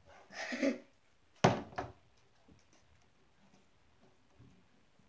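A short rustling noise, then a sharp thump on the tabletop about a second and a half in, followed quickly by a lighter knock, as a plastic cup of slime is handled on a wooden table; after that only faint small handling sounds.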